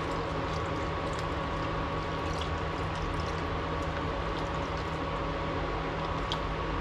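Dye liquid being poured from a plastic pitcher onto wet skeins of yarn in a steel pan, over a steady machine hum with a constant tone.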